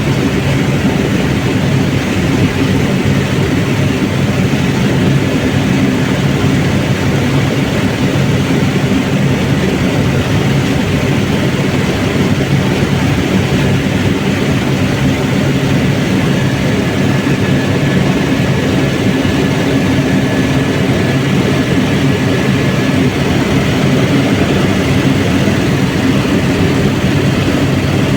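Helicopter running steadily: a loud, constant engine and rotor drone with a set of steady low tones, unchanging throughout.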